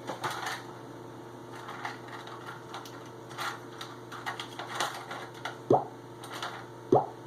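Small precision screwdrivers clicking and tapping against the phone's tiny parts and the work surface, with two sharper clicks near the end, over a steady low hum.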